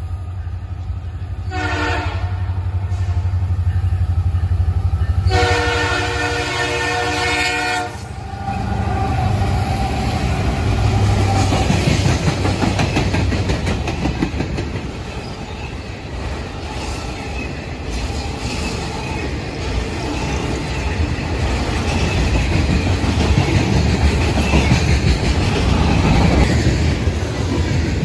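Freight train's diesel locomotive horn sounding a short blast, then a longer one about five seconds in, as it approaches a grade crossing. Then the locomotives and freight cars roll past close by, a loud steady rumble with wheels clattering over the rails.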